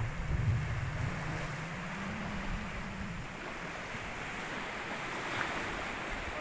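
Sea waves and wind buffeting the microphone, with a low rumble that rises slightly and fades out about three seconds in.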